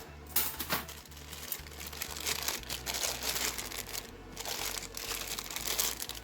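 A bag crinkling and rustling as it is handled, a dense run of small irregular crackles, over a faint low steady hum.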